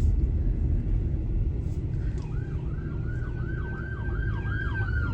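Emergency vehicle siren starting about two seconds in: a fast yelp rising and falling about three times a second, with a second long steady wail that begins to fall near the end, over a steady low rumble.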